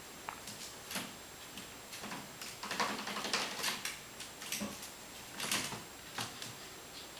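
A puppy scrambling about in a stacked plastic wire basket and climbing out: irregular rattling, knocking and scratching of the plastic, busiest in the middle. Near the end come the light clicks of claws on a wooden floor.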